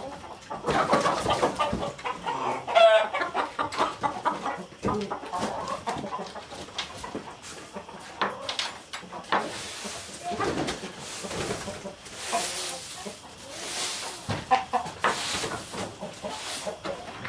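A flock of chickens clucking and calling as they come into the coop to roost, with short warbling calls throughout. In the second half there is scratchy rustling, likely birds moving about in the wood-chip bedding.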